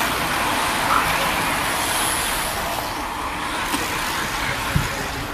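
A line of racing bicycles passing close by: a steady rush of tyres on asphalt.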